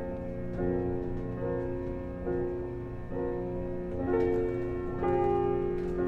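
Background music: slow, sustained chords that change every second or so.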